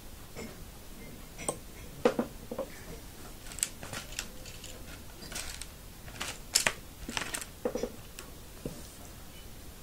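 Irregular small clicks and taps from hands working rubber loom bands over a pair of metal forks, with two louder snaps near 2 s and 6.5 s.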